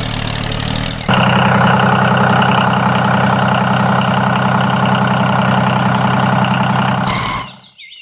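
Small engine of a DIY mini tractor-bulldozer running steadily. It steps up louder about a second in and fades out near the end.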